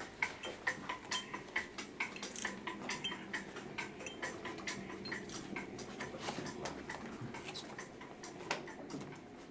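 Sleigh bells jingling in a quick, steady rhythm of about three to four shakes a second, slowly growing fainter.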